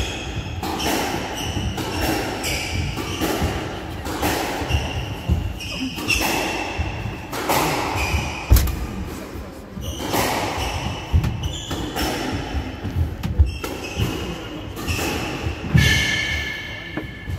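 Squash rally: the ball cracks off the rackets and the court walls about once a second, echoing in the enclosed court, with short high squeaks from the players' court shoes on the wooden floor between the hits.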